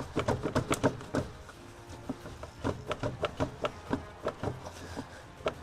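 Plastic air filter housing of a Lada Vesta clicking and knocking as it is worked loose from its latches and mounting slots by hand, in a quick irregular run of sharp clicks.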